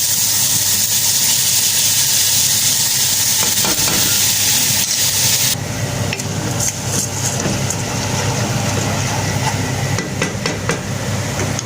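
A hot cooking pan sizzling loudly with browned noodles and rice. The sizzle cuts off sharply about five and a half seconds in, followed by a spoon stirring and scraping against the pan with scattered clicks.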